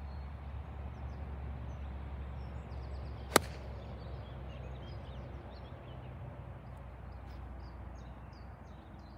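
A single sharp click of an iron striking a golf ball off fairway turf, about three seconds in, over steady low outdoor background noise.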